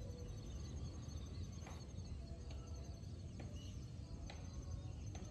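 Outdoor ambience of insects trilling steadily, with short bird-like chirps roughly once a second, over a constant low rumble.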